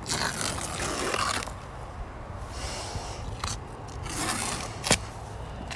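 Tape being peeled off a refrigerator door: several rasping stretches of peeling, the longest in the first second and a half, with a couple of sharp clicks in the second half.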